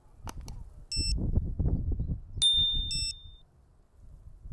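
An FPV quadcopter's buzzer beeping after a crash: short, high, electronic beeps about every two seconds, the lost-model alarm sounding from the downed quad. Low rumbling noise runs under the beeps, and a sharp click with a brief high ring comes about two and a half seconds in.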